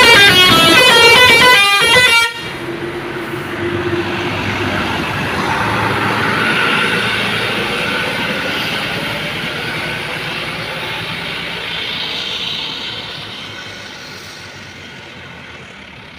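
A bus's Basuri 'telolet' multi-tone horn plays a loud, rapidly stepping melody, then cuts off sharply about two seconds in. After that the bus goes past, its noise swelling and then slowly fading.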